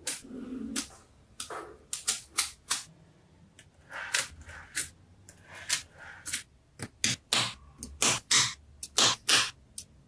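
Small neodymium magnetic balls clicking and snapping together as slabs of them are laid on one another and pressed into place by hand. The sharp clicks come irregularly, thickening into a quick run in the last few seconds.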